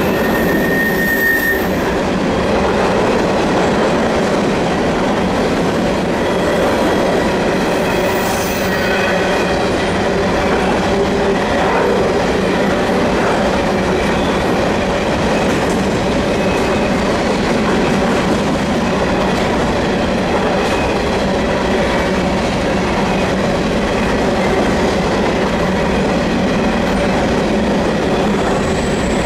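CN freight train rolling past on a curve: a steady rumble of wheels on rail, with faint high squeals from the wheel flanges coming and going.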